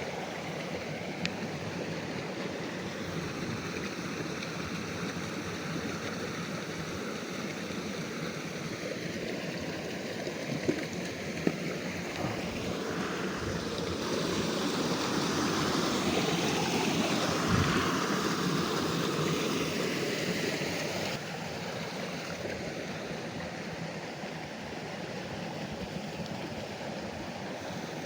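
Small river's water running steadily, swelling louder for several seconds in the middle, with a couple of faint clicks.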